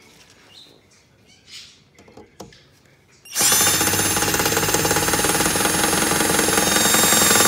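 Cordless drill from a pink hand and power tool set, its motor starting suddenly about three seconds in and running at a steady speed for about four and a half seconds. Before it there are a few light handling clicks.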